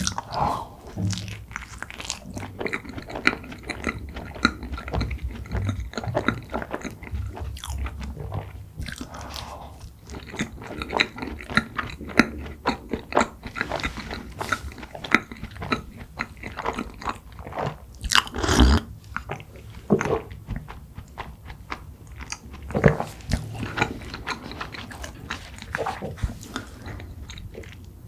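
Close-miked eating sounds: bites into soft cream-filled red bean buns, then chewing with irregular wet mouth clicks and smacks, louder about two-thirds of the way through.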